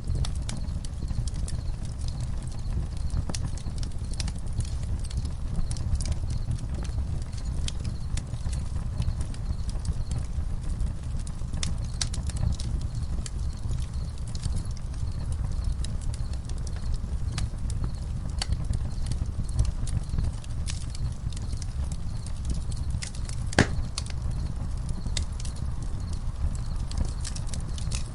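Campfire crackling: irregular wood pops and snaps over a steady low rumble, with one sharper pop about three-quarters of the way through.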